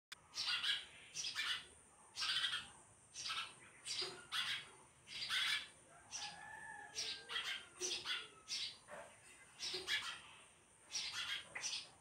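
Sparrow chirping: a string of short, sharp chirps about once a second, some in quick pairs, with a brief lull about halfway through.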